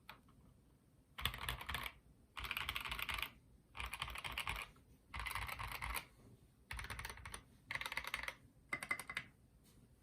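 Typing on a CableCarDesign Prophet HHKB-layout custom mechanical keyboard with Dogikon switches on cream stems lubed with Tribosys 3204, a full polypropylene plate and SA keycaps. The keystrokes come in quick runs of about a second each, with short pauses between them, after a quiet first second.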